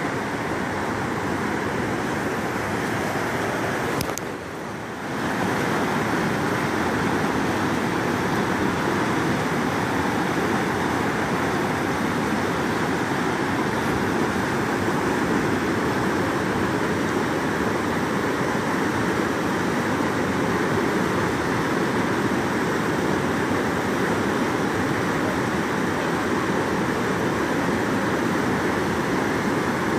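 Rushing whitewater of a flooded creek: a steady, loud rush of rapids that dips briefly after a click about four seconds in.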